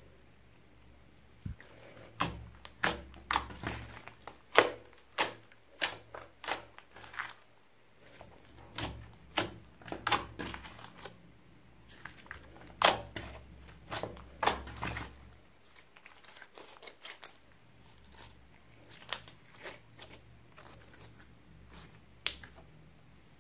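Thick white slime, clear slime mixed with store-bought slime, being stretched and kneaded by hand, giving irregular sharp clicking pops as air pockets in it burst. The pops come thickly for most of the first fifteen seconds, then a quieter stretch, then a few more near the end.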